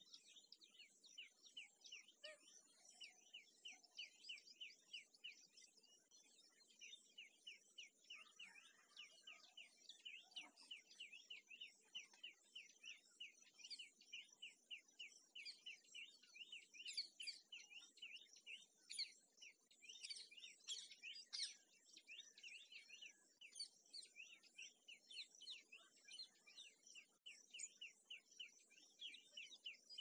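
Quiet outdoor ambience of fast, evenly repeated short high chirps, about three a second, over a faint steady high hiss. The chirps come louder and denser for a few seconds around the middle.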